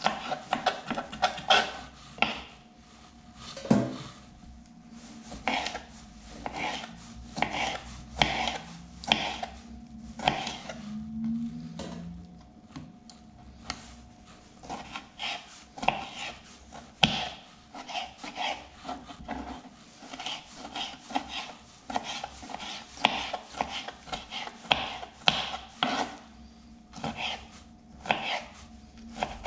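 Small knife slicing and dicing pickled gherkins on a cutting board, the blade tapping the board in quick, irregular strokes.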